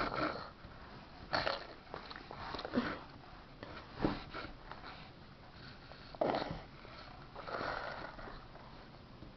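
A kitten pouncing on and biting a knitted toy close to the microphone: about five short scuffling, snuffling bursts with quieter stretches between them.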